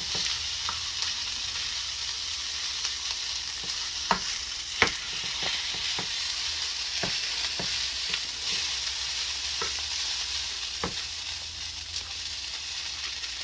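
Food sizzling as it fries in a pan, with a steady hiss and a utensil clicking and scraping against the pan now and then as it is stirred; the sharpest click comes about five seconds in.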